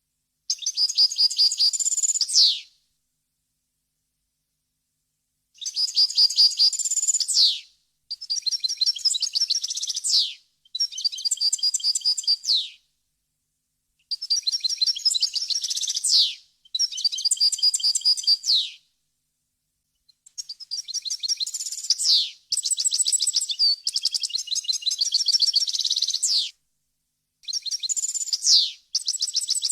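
European goldfinch singing: bursts of rapid, high twittering with buzzy trills and quick falling notes, each about two seconds long, broken by short pauses.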